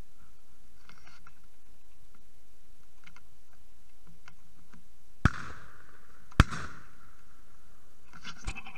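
Two shotgun shots about a second apart, each a sharp crack with a trailing echo, fired at doves passing overhead.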